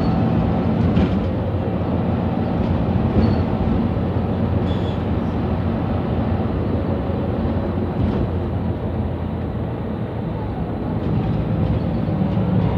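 Mercedes-Benz Citaro C2 Euro 6 city bus under way, heard from inside the passenger cabin: a steady low engine and running drone that grows louder near the end.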